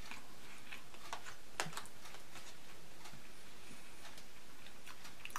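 Small, irregular clicks and ticks of a man eating and chewing, a handful over a few seconds, over a steady faint hiss.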